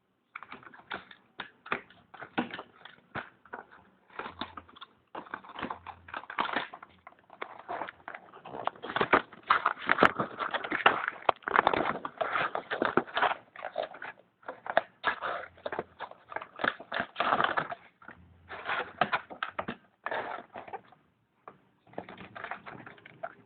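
Plastic packaging crinkling and clicking as it is handled and opened, an irregular crackle that is densest in the middle.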